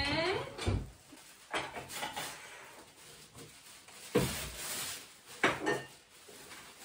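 Paper rustling and crinkling as drinking glasses are wrapped for packing, with light knocks of glassware and dishes being handled, in several separate bursts. The loudest bursts come about four and five and a half seconds in.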